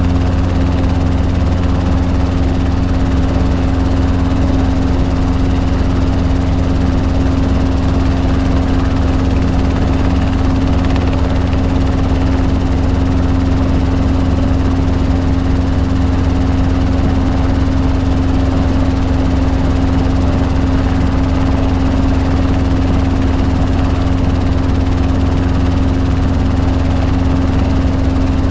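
Robinson R22 helicopter heard from inside the cockpit, its main rotor and four-cylinder Lycoming piston engine running steadily: a constant low drone with a steady hum over it.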